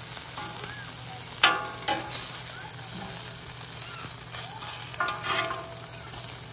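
Corn-tortilla tacos sizzling in fat on a steel flat-top griddle, with a metal spatula scraping across the griddle surface a few times as the tacos are lifted and turned. The loudest scrape comes about a second and a half in, with more near two seconds and around five seconds.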